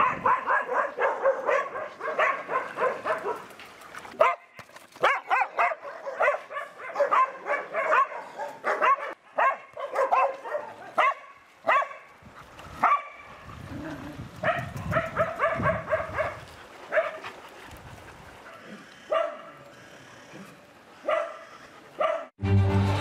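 Dogs barking repeatedly, in quick runs at first, then in scattered single barks with gaps between.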